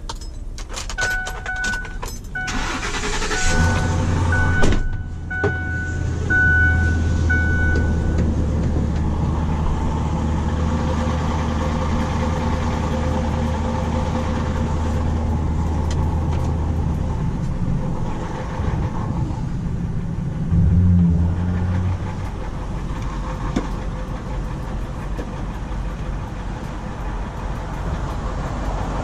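A Ford Super Duty truck's engine is cranked and catches about three and a half seconds in, then idles steadily, with a brief rise in revs around twenty seconds in. A dashboard warning chime beeps repeatedly over the first several seconds.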